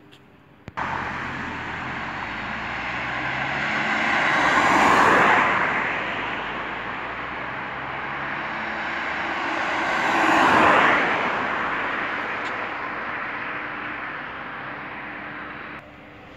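Highway traffic: two vehicles pass close by, about five and ten seconds in, their tyre and engine noise swelling and fading over a steady road roar. The sound starts abruptly about a second in and cuts off near the end.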